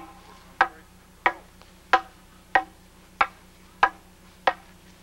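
Wooden fighting staffs clacking together in a steady drilled exchange: eight sharp wooden knocks at an even pace of about one and a half per second.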